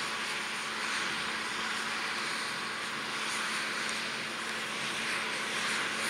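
John Deere 6215R tractor's six-cylinder diesel engine running steadily under load while pulling a six-furrow plough through the soil: a continuous engine noise with a steady note beneath it.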